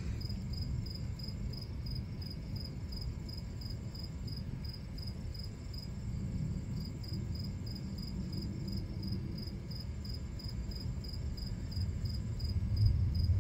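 Crickets chirping steadily at about four chirps a second over the low, continuous rumble of distant thunder, which swells near the end.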